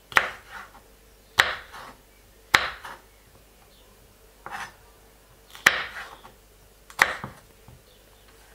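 Kitchen knife chopping red bell pepper on a wooden cutting board: six sharp knocks of the blade on the board, a second or so apart, one of them softer than the rest.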